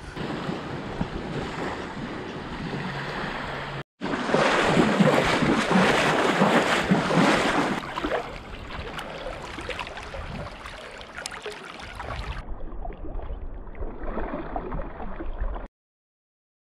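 Small sea waves lapping and sloshing close to an action camera, with wind buffeting its microphone; the noise is loudest about four to eight seconds in. About twelve seconds in it turns muffled and deeper, then cuts off to silence shortly before the end.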